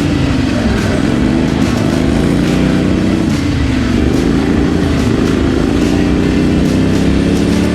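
Small engine of a riding lawn mower built for mud and off-road running, revving hard, its speed rising and falling several times.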